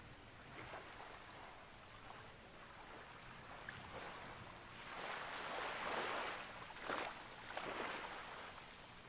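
Small waves lapping and washing in, the water swelling into a louder wash about five seconds in, followed by two shorter surges.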